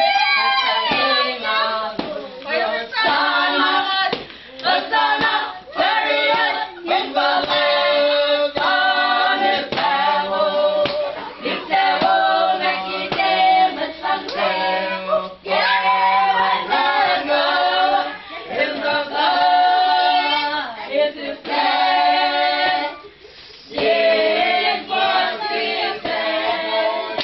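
A group of voices singing together without instruments, with hand clapping, the singing breaking off briefly near the end before picking up again.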